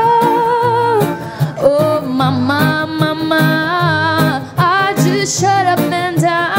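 A woman and a man singing long held notes with vibrato over a strummed acoustic guitar.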